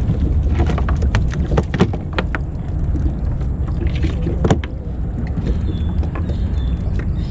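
Clicks and knocks of a crab net being handled and blue crabs being picked out of its mesh on a wooden boat deck, a quick run of them over the first couple of seconds and one sharper knock about four and a half seconds in, over a steady low rumble.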